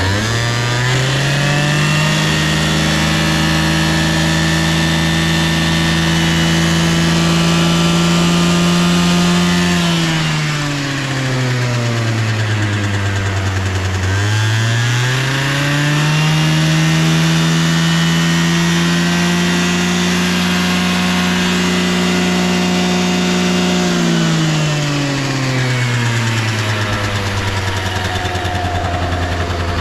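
Honda Live Dio AF35 scooter's 50cc two-stroke single-cylinder engine revved twice from idle, each time held at a steady higher speed for about eight seconds before falling back to idle. It runs smoothly without abnormal noise, as the seller states.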